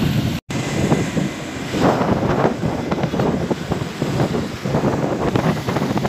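Wind buffeting the phone's microphone while riding on a moving motor scooter, with the scooter's engine and road noise underneath. The sound drops out completely for a moment about half a second in.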